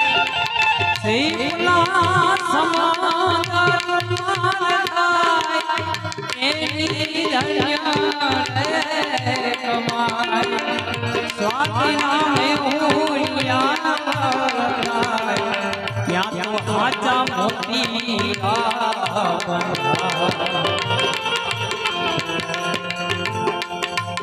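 Indian devotional bhajan music: a steady tabla rhythm under a wavering, ornamented melody line, with no words sung.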